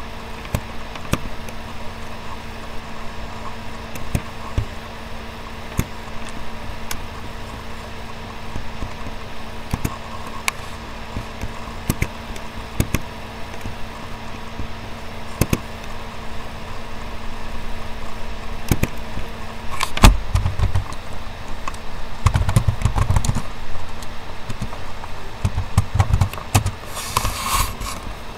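Computer mouse clicks and keyboard typing: scattered sharp clicks over a steady low hum, with a few heavier thumps in the second half.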